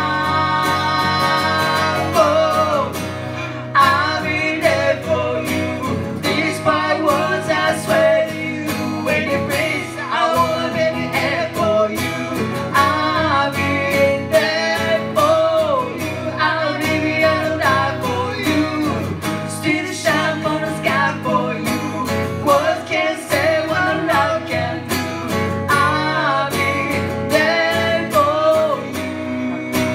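A woman singing live, opening on a long held note with vibrato, over a strummed acoustic guitar.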